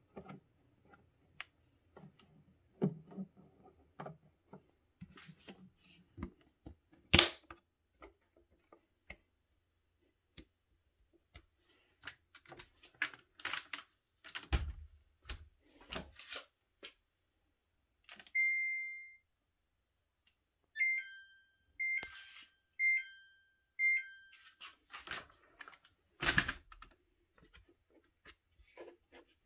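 Plastic and glass clicks and knocks of a Samsung FlexWash washer's upper glass lid being handled and pushed shut. Partway through, the washer gives one long beep, then a run of short beeps alternating between two pitches: its alert, in a machine showing the 1DC4 error.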